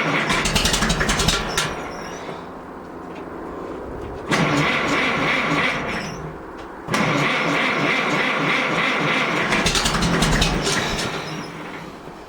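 Farmall MD's cold engine being cranked by the starter in three long bursts, turning over without catching.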